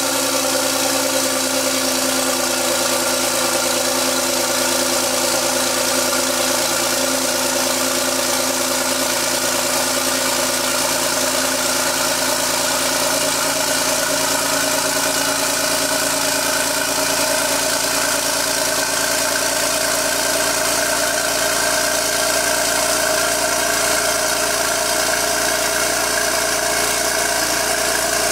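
2011 Porsche 997.2 Turbo S's 3.8-litre twin-turbo flat-six idling steadily at the exhaust, freshly started from cold.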